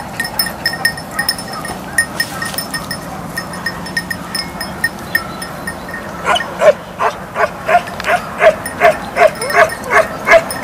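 Hunting dog barking in a rapid run of high yelps, about three a second, starting about six seconds in. Before that, a light metallic tinkling, like a small bell, repeats.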